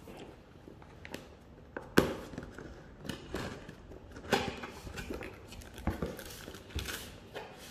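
Cardboard box being opened by hand: the flaps and tuck-in lid scraping and rubbing, with several sharp snaps and knocks, the loudest about two seconds in.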